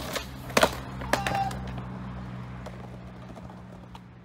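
Skateboard popping and landing a flip trick on asphalt: a few sharp wooden clacks, the loudest about half a second in, over a low steady hum.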